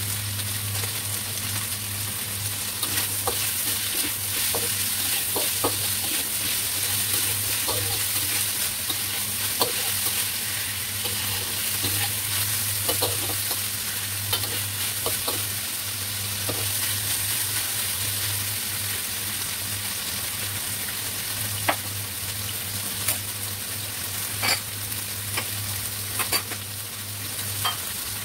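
Bitter gourd and pork sizzling as they stir-fry in a wok, with a metal spatula scraping and clicking against the pan now and then, the clicks coming more often near the end.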